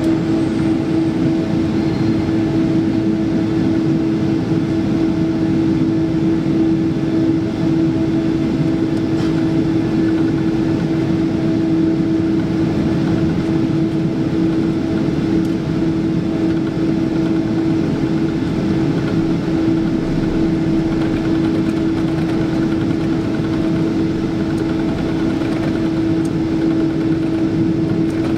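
Cabin noise inside a Boeing 777-200ER moving on the ground: jet engines at low power and cabin air, a steady loud hum with a constant drone.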